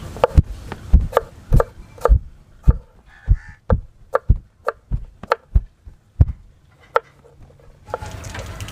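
Kitchen knife slicing peeled potatoes on a wooden cutting board: the blade knocks sharply on the board about two or three times a second, and the cutting stops about seven seconds in.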